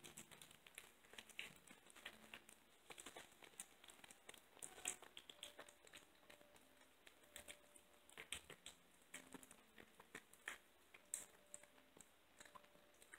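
Kitten eating raw ground chicken and egg from a bowl: faint, irregular wet smacking and lapping clicks of her mouth and tongue, several to the second.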